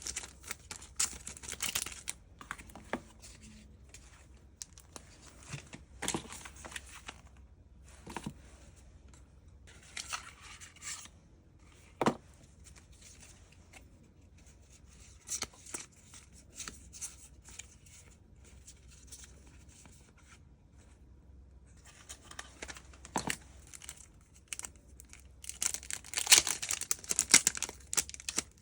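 Packaging being opened by hand: irregular tearing and crinkling of paper or plastic, in short bursts with a few sharp clicks, busiest near the end.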